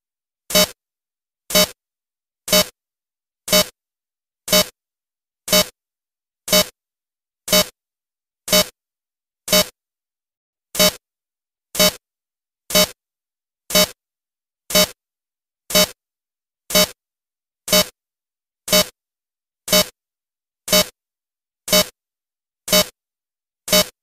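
Electronic emergency alert alarm sounding a short, harsh, buzzy blast about once a second, evenly spaced with silence between, about two dozen times.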